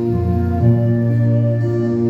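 Instrumental passage of a hymn: sustained organ chords, with the chord changing about half a second in.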